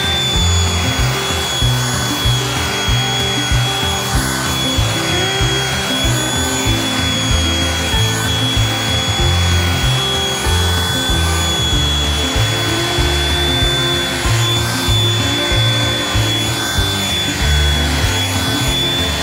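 Handheld electric power tool running with a steady high whine as it works along a wooden rocker's curved edge. Background music with a rhythmic bass line plays underneath.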